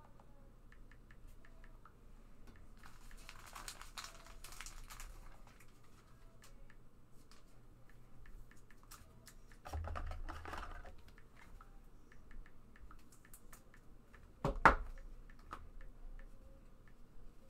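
Trading cards and packs being handled on a table: light scattered clicks, two short spells of rustling, and one sharp knock about three-quarters of the way through.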